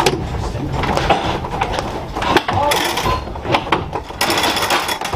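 Clicks, knocks and rattles inside an old RET streetcar, with two short bursts of hiss near the middle and end and faint voices behind.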